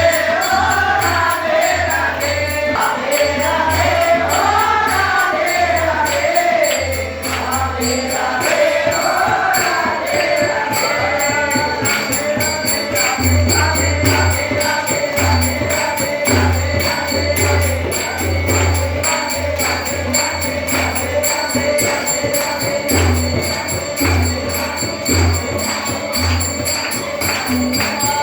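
Hindi devotional bhajan: voices singing a melody over a steady drum beat and jingling tambourine-like percussion, with the singing strongest in the first half.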